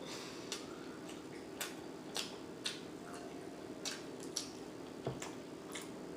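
Close-miked mouth smacking while chewing: about eight short, wet clicks at irregular intervals over a faint steady hum.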